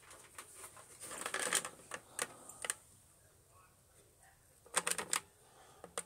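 Faint handling noise: scattered light clicks and rustles, in a short cluster about a second in, a couple of single clicks, and a quick run of clicks near five seconds in.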